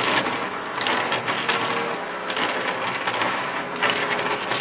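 Segments of a 3D-printed articulated plastic crocodile clicking and rattling against one another as it is flexed by hand, a dense run of small clicks.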